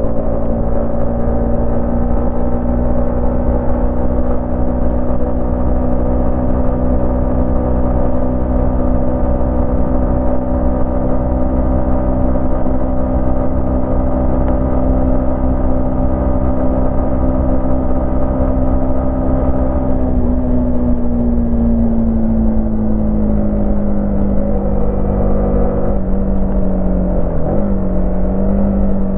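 Yamaha MT-15's 155 cc single-cylinder engine running at a steady cruise, its note holding constant. About two-thirds of the way through the pitch falls gradually as the bike eases off and slows.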